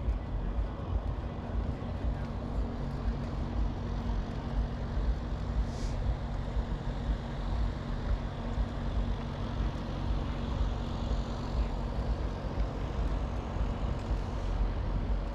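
Outdoor ambience dominated by wind rumbling on the microphone as it is carried along, with a steady low hum that fades out about twelve seconds in.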